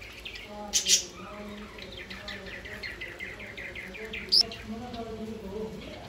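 A flock of budgerigars chattering and chirping as they feed, with a quick run of repeated chirps in the middle and two loud, sharp calls, one about a second in and one a little after four seconds.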